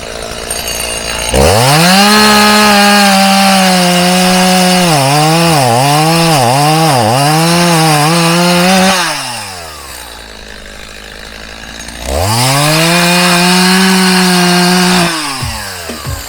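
Gas chainsaw revving up from idle to full throttle, its engine speed dipping and recovering several times as if loaded in a cut, then dropping back to idle. It revs to full throttle again for about three seconds before returning to idle.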